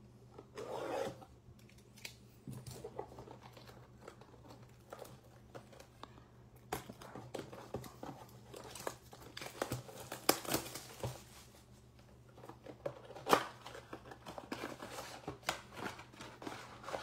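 Plastic shrink wrap being torn and crinkled off a cardboard trading-card box as the box is opened, a run of crackles and rustles with two sharper snaps about ten and thirteen seconds in.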